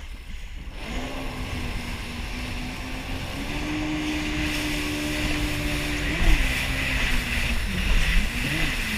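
Yamaha jet ski engine running on the water, its tone coming in about a second in, stepping up in pitch midway and revving up and down briefly near the end as the throttle changes. Wind buffets the microphone and water hisses underneath.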